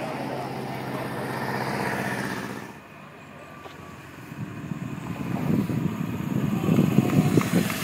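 A pickup truck's engine running steadily as it drives off along the road, then, after an abrupt break, a motorcycle approaching, its engine growing louder over the last few seconds.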